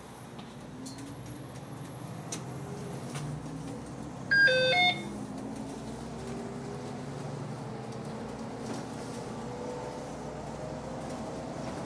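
City bus driving, its engine running with the pitch slowly rising as it pulls away. About four seconds in, a brief, loud electronic chime of a few stepped beeps sounds inside the bus.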